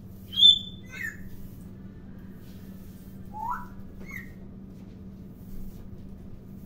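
Parrot giving short whistles and chirps: a loud high whistle about half a second in, a falling chirp at about one second, a rising whistle around three and a half seconds, and a short chirp just after four seconds. A steady low hum runs underneath.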